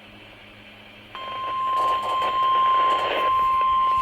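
Weather radio receiver hissing with static; about a second in, the loud steady NOAA Weather Radio warning alarm tone starts over the static, the signal that a warning broadcast is about to follow.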